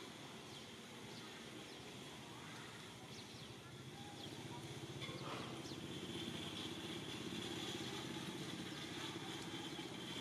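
Outdoor background: a steady low mechanical hum that grows a little louder after about four seconds, with a high steady buzz and a few faint short chirps.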